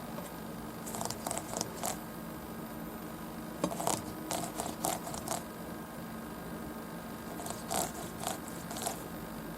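Small handling sounds: three groups of short, crisp clicks and crunches over a steady low hum.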